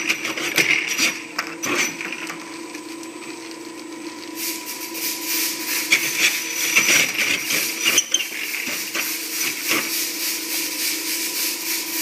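Wheel test rig running, its tire rolling on concrete, with a steady motor whine under a continuous clatter of clicks and rattles that becomes denser and louder about four seconds in.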